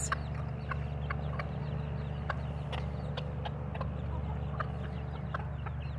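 Bantam chickens softly clucking as they feed, with scattered light clicks of pecking over a steady low hum.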